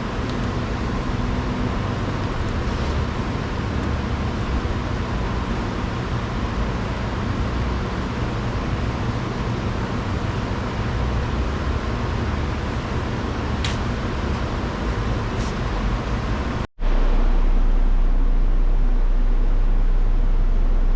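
Steady mechanical background noise with a low hum and two faint clicks. About three-quarters of the way through it cuts out for an instant and comes back as a louder, steady low rumble.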